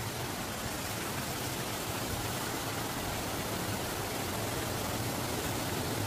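Steady rushing of a forest stream tumbling over rocks below a waterfall.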